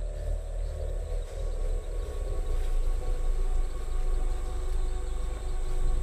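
Low suspense drone: a heavy rumble with a few sustained tones that slowly sink in pitch over the first three seconds, under a thin steady high whine.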